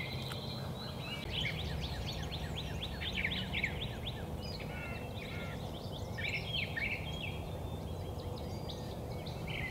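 Small songbirds singing: quick runs of high, downward-slurred chirps, with a few short whistled notes, in two main bursts, over a steady low background rumble.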